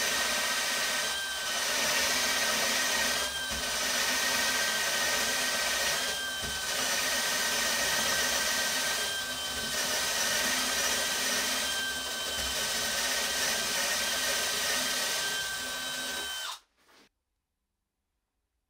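DeWalt DCD999 cordless drill running under load, boring a large Forstner bit into thick wood: a steady motor and gear whine that holds its pitch without bogging down, with brief dips every two or three seconds. It cuts off suddenly near the end.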